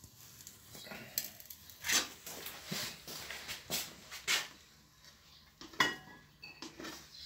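A frying pan knocking and a utensil scraping as cooked rice is tipped out of the pan into a glass bowl: scattered short clinks and scrapes with pauses between them.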